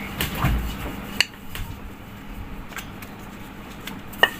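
Wooden rolling pin rolling out wheat flour dough on a chapati board: a low rolling rub with a few sharp clicks and knocks, the loudest near the end.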